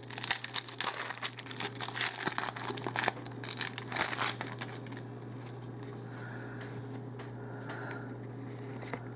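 Crinkling of a foil Magic: The Gathering booster pack wrapper being handled and torn open, dense for the first four and a half seconds, then dying away to quiet.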